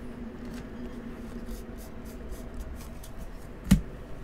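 A stack of trading cards being flipped through by hand: a string of light ticks and slides of card stock, with one sharp tap about three and a half seconds in.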